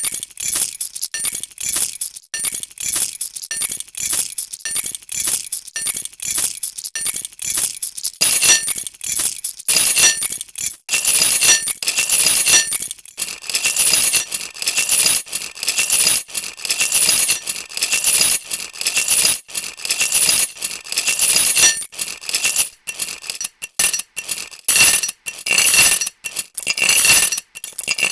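A bunch of metal keys jingling and clinking in quick shakes, the clinks separate at first and running together into denser, louder jangling from about eight seconds in.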